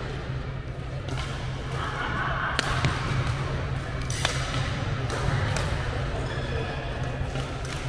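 Badminton hall ambience: a steady low hum with about six scattered sharp smacks of shuttlecocks being hit with rackets, ringing in a large hall.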